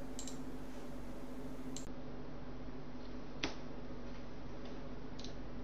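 Quiet room tone: a low steady hum with one faint click about three and a half seconds in.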